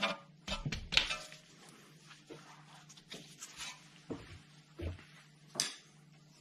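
Scattered light clicks and taps of gloved hands handling parts at a car's rear brake caliper, several in the first second and then single ones every second or so, over a steady low hum.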